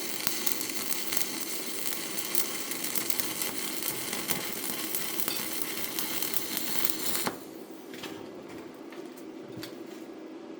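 Stick-welding arc burning a 1/8-inch 7018 electrode at about 110 amps: a steady crackling sizzle that cuts off suddenly about seven seconds in as the arc is broken. After it, a few faint ticks.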